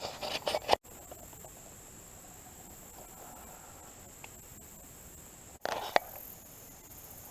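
Steady, high-pitched chirring of crickets or other insects in the woods. Two brief louder rustling noises, one at the start and one about six seconds in with a sharp click, break through it.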